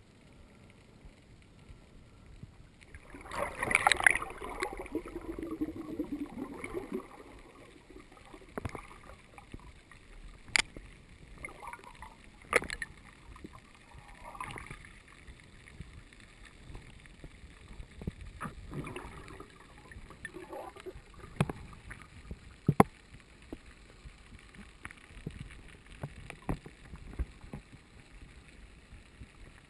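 Muffled underwater sound through a GoPro's waterproof housing during a freedive: a louder rushing, gurgling burst from about three to seven seconds in, then scattered sharp clicks and knocks over a low water hiss.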